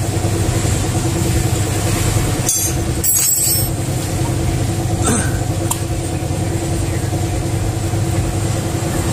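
A steady, even machine drone like an engine running at idle, with a few short metallic clicks and taps as a hand tool works on a scooter's open cylinder head.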